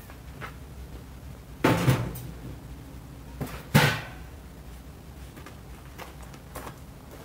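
Camping gear being set down and stacked: two loud knocks about two seconds apart, the second the sharper and loudest, with a few lighter clicks and knocks around them.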